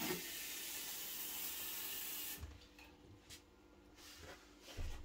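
Kitchen sink tap running steadily into a small plate, turned off abruptly about two and a half seconds in; a soft thump near the end.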